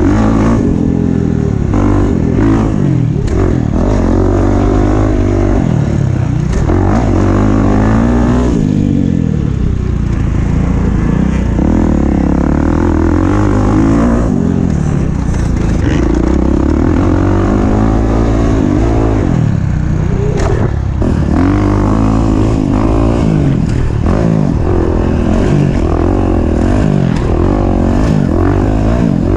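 Dirt bike engine riding hard, revving up and dropping back over and over, every second or two, as the rider accelerates, shifts and backs off.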